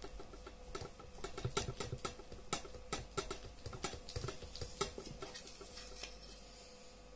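Irregular clicks and scrapes of a pointed hand tool being twisted into the hard plastic cup of an ear defender, boring a hole through it. The clicking is busiest in the middle and thins out near the end.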